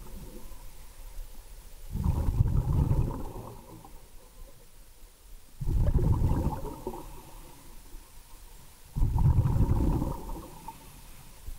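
Scuba diver's exhaled bubbles from the regulator, heard underwater in three bursts about three and a half seconds apart. Each burst lasts a second or two and is mostly low-pitched, with quieter water noise between them.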